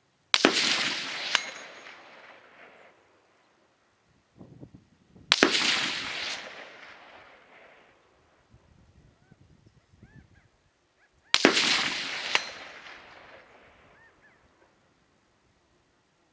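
Three AR-15 rifle shots about six seconds apart, each trailing off in a long echo. About a second after each shot comes a short metallic ring: the distant steel plate being hit.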